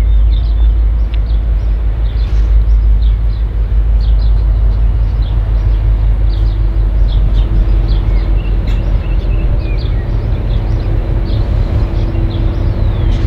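N class diesel-electric locomotive running light at low speed, approaching: a steady deep engine rumble, with a hum that grows stronger from about halfway through. Short high chirps sound over it.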